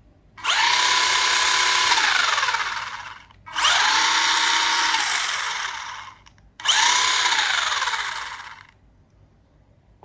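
RC car's ordinary brushed electric motor run up three times, a second or less apart. Each time a whine spins up quickly, holds for about two seconds, then winds down with falling pitch.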